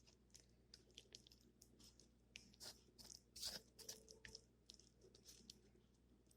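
Faint, irregular wet clicks and crackles of cottage cheese, sour cream and sauces being mixed around on a flour tortilla, a little louder about halfway through.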